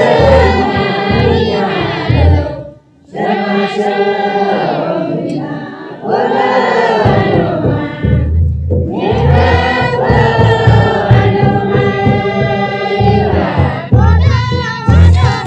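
Background music: a chorus of voices singing a song over a low, steady beat. The phrases break off briefly about three seconds in and again just before nine seconds.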